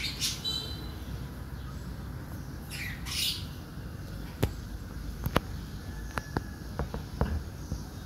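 Pigeon moving in a wire cage: a couple of short high squeaks and rustles in the first few seconds, then a run of about a dozen sharp clicks and taps in the second half.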